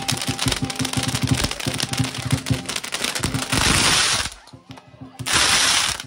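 A long string of firecrackers going off in a rapid, continuous crackle of bangs, then two denser blasts about three and a half and five seconds in, with a short lull between them.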